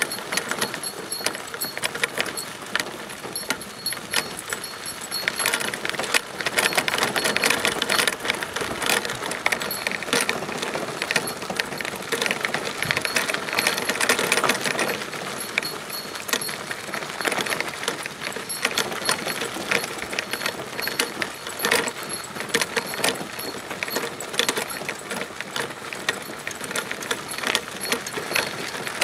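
A dog-pulled Sacco cart rolling over a sandy gravel road: the wheels crunch steadily while the metal frame and harness hardware rattle and jingle continuously.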